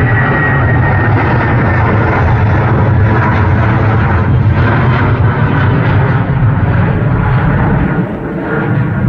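Jetstar Airbus A320 airliner's jet engines at climb power as it passes overhead just after takeoff: a loud, steady rumble with a faint high whine fading in the first second, dipping briefly near the end as the plane moves away.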